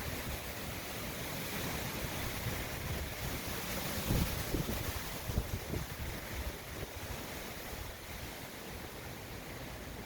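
Hurricane winds blowing steadily with rain, gusting against the microphone about four and five and a half seconds in.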